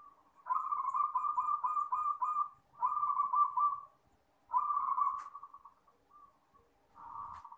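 Zebra dove (perkutut) cooing: three phrases of quick, rolling coo notes, then a softer fourth phrase near the end.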